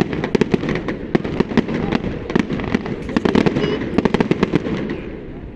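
Fireworks display: a rapid, dense string of sharp bangs and crackles, thinning out and getting quieter near the end.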